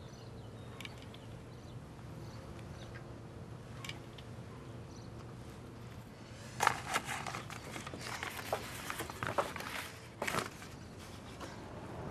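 Quiet street ambience with a steady low hum, then a little past halfway a run of irregular sharp clicks and knocks lasting about four seconds.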